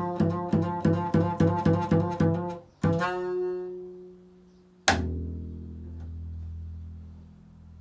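Double bass played pizzicato: a quick run of about a dozen plucked notes, about four a second, then a single note left to ring. Near the end comes one hard pluck with a sharp snap, and a low note rings on and slowly fades.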